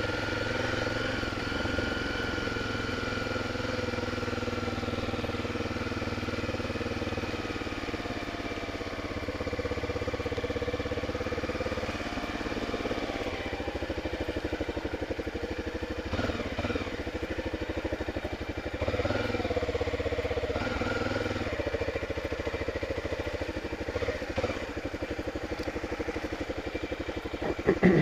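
Honda Tornado 250 single-cylinder engine running steadily at low revs, with a few short rises in engine speed past the middle and a brief knock near the end.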